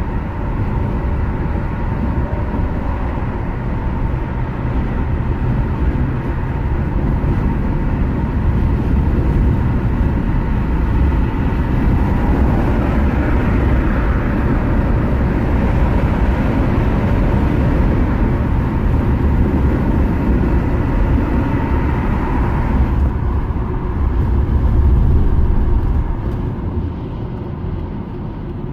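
Steady road noise of a car driving at highway speed: tyre and engine noise, easing off slightly near the end.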